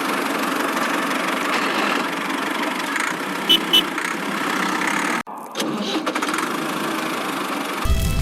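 A motor running steadily. Two short high beeps sound about three and a half seconds in, and the running cuts out sharply for a moment just past the middle before starting again.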